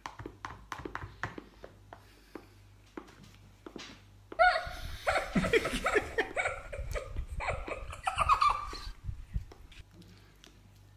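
Small taps and scrapes of a spoon in a tray of tiramisù, with eating noises. About four seconds in, people laugh for several seconds.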